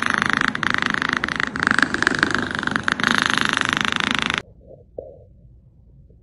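A domestic cat being stroked on the head makes a continuous raspy, rattling vocal sound with its mouth open. The sound cuts off suddenly a little over four seconds in.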